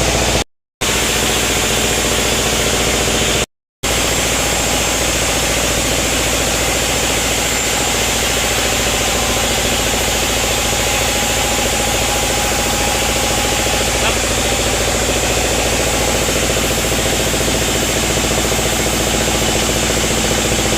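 Sawmill machinery running steadily: a continuous engine-like hum under a hiss, with no change of load. The sound cuts out to silence twice, briefly, in the first four seconds.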